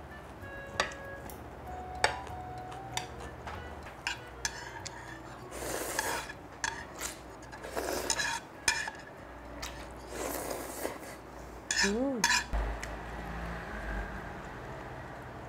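Metal chopsticks clicking and scraping against bowls and plates while eating, with a few short slurps of ramyeon broth about six, eight and ten seconds in. A short rising hum near the end.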